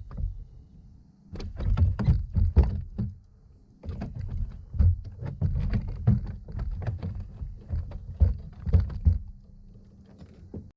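Irregular knocks and thumps of gear being handled on a fishing kayak, coming in two clusters with a short lull just before the four-second mark.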